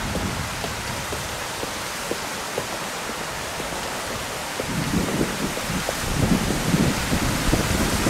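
Steady heavy typhoon rain falling on wet paving and canal water. About halfway through, a louder, lower rushing joins in: water pouring off the Jaa-jaa bridge aqueduct into the canal.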